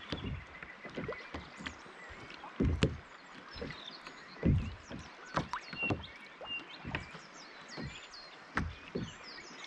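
Small waves slapping against the hull of a sit-on-top fishing kayak: irregular soft low thumps, roughly two a second, with a few louder ones, over light water noise.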